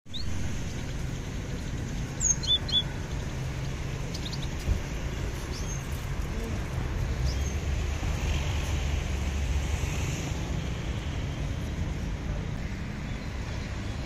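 Caged songbirds giving a few short, high chirps, a quick cluster about two seconds in and single chirps later, over a steady low rumble.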